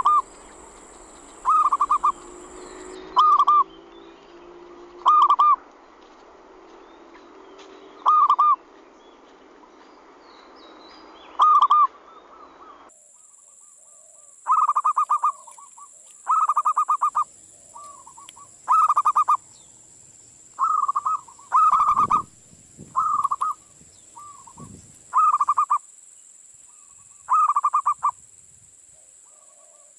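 Zebra dove (perkutut) cooing: short rolling calls of a few quick notes. They repeat every two or three seconds at first, then about once a second after the recording changes a little before halfway.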